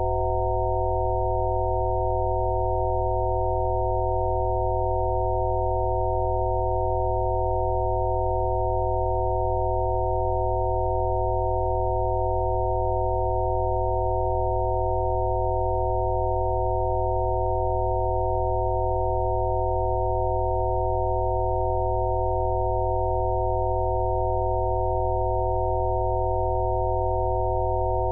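Several steady electronic sine tones sounding together as one unchanging chord over a low drone: synthesized Rife frequency tones.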